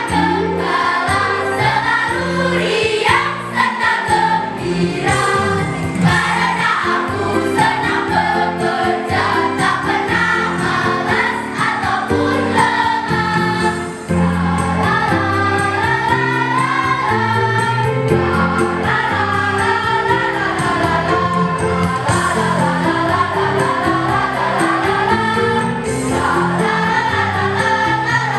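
A school choir singing in parts over an instrumental accompaniment, with jingles or bells in the backing.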